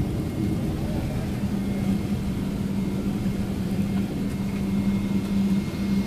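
Airliner cabin noise as the jet rolls along the runway after landing: a steady low rumble, with a steady low hum setting in about a second and a half in.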